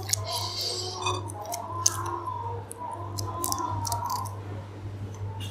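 Boiled prawn shells being peeled by hand: irregular small clicks and crackles, over a steady low hum.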